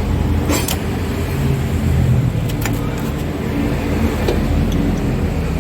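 Car engine idling steadily with its belt-driven cooling fan turning, the fan's viscous clutch freshly topped up with silicone oil; a few light clicks sound over it.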